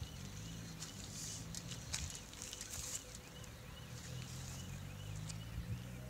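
Railway level-crossing audible warning signal beeping faintly, a rising-and-falling electronic chirp repeating about two to three times a second, sounding from inside the signal cabinet; the crossing alarm is active while its flashing lights are failing. A low steady hum sounds underneath.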